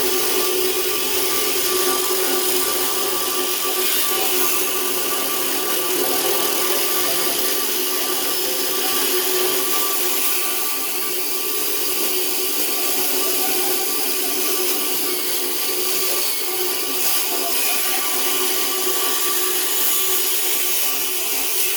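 4.5-inch angle grinder running steadily under load with a steady whine and hiss, cutting through the steel of a safe.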